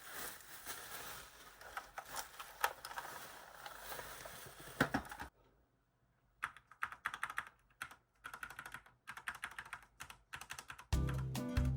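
Fast typing on a Corsair K70 mechanical keyboard: a dense run of key clicks, a short pause about five seconds in, then more separate keystrokes. Background music with a bass line comes in near the end.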